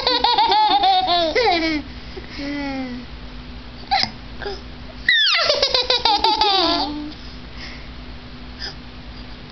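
A young girl's high-pitched laughter in two long peals that slide down in pitch, one at the start and one about five seconds in, with a short hiccup about four seconds in between.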